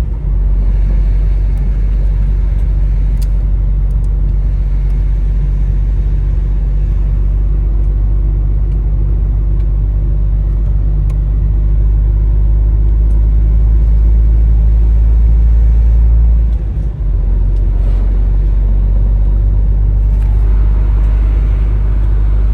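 Semi-truck's diesel engine and road noise heard from inside the cab while driving: a loud, steady low drone, with a brief drop about two-thirds of the way through before it picks up again.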